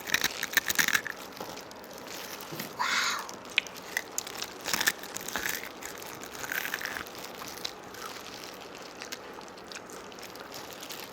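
Crispy fried chicken being bitten and chewed close to the microphone: scattered crunching and crackling, densest in the first second.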